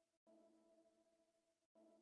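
Near silence: only a very faint drone of a few steady held tones, dropping out briefly twice.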